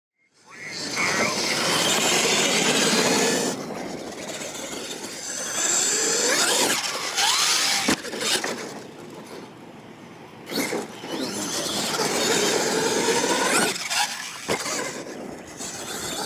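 Radio-controlled monster truck's motor and gears whining, the pitch rising and falling with the throttle, over the rush of tyres on loose dirt. A few sharp knocks come through, three of them standing out.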